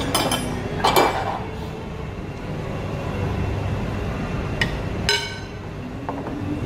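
Metal chopsticks and spoon clinking against a ceramic bowl and plate, a few separate sharp, ringing strikes, the loudest about a second in and two more close together around five seconds in. Under them is a steady low background rumble.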